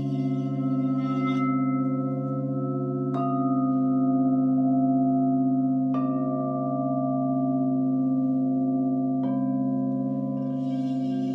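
Clear crystal singing bowls ringing together in a steady, layered drone. A bowl is struck four times, about every two to three seconds, and each strike adds a brighter ringing tone over the hum.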